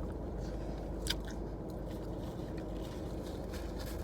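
A person chewing food with soft wet mouth clicks, one sharper click about a second in, over a steady low hum inside a car.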